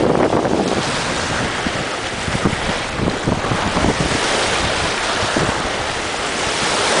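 Wind buffeting the microphone over the steady wash of choppy lake waves.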